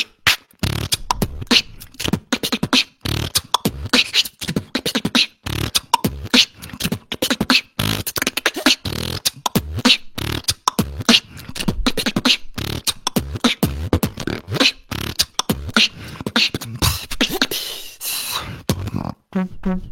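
A beatboxer performing a solo battle round: fast, dense percussive mouth sounds, with kick-drum thumps, snare and hi-hat clicks laid over deep bass, and pitched, wavering vocal tones near the end.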